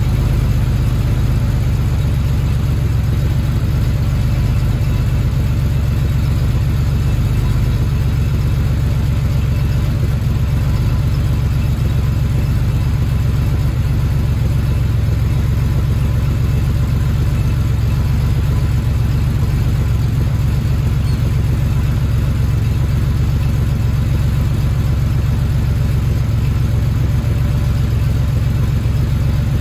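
1977 Porsche 930 Turbo's air-cooled, turbocharged 3.0-litre flat-six idling steadily as it warms up after a cold start, heard from behind the car at the exhaust.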